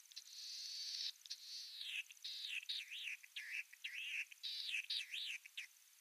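Latham's snipe singing: a buzzy note in the first second, then a run of harsh, rasping notes that swoop down and up in pitch, stopping shortly before the end.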